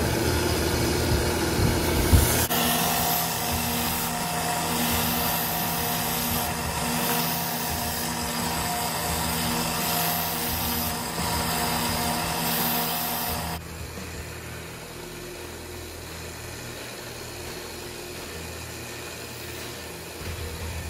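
Small bench belt grinder switched on with a click about two seconds in, its motor humming steadily while a knife edge is ground on a polishing-grit belt in several scraping passes. The grinder stops abruptly a little past halfway, leaving a quieter steady background noise.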